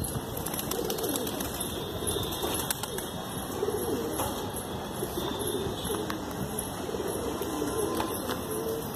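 Flock of Indian desi high-flyer pigeons cooing, several birds' low coos overlapping.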